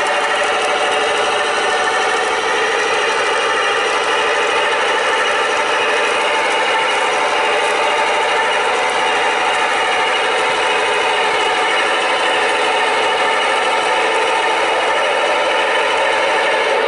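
Sound system of G-scale USA Trains NW2 model diesel switchers playing a steady diesel engine running sound as the locomotives move along the track.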